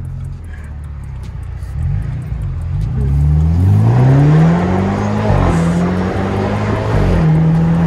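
BMW Z4's turbocharged engine accelerating hard at full throttle. Its pitch climbs through the revs, dips at gear changes about five and seven seconds in, then holds steady near the end.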